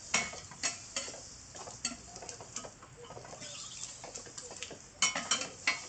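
Two metal spatulas clacking and scraping on a flat metal griddle as pieces of pork offal are turned and chopped. Scattered taps early on, quieter in the middle, then a quick run of sharp clacks near the end.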